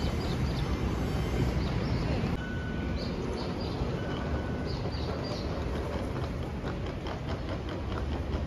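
Outdoor street ambience: a steady low rumble with short bird chirps scattered through it, and a run of light clicks near the end.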